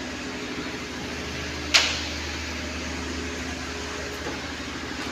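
A steady mechanical hum, like a fan or running machinery. About two seconds in there is a single sharp clack, the loudest sound.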